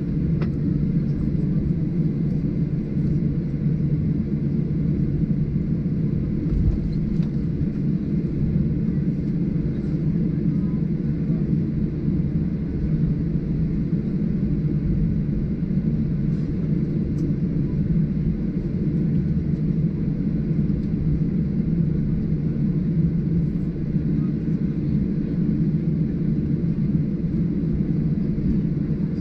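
Steady, even cabin rumble of a Boeing 737-800 airliner: engine and airflow noise heard from inside the cabin, with no change through the stretch.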